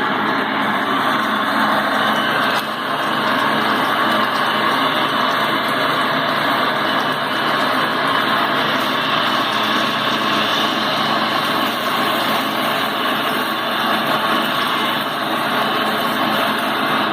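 Kalamazoo 610-W bandsaw running with a steady mechanical whir that hardly changes, with a brief dip about two and a half seconds in.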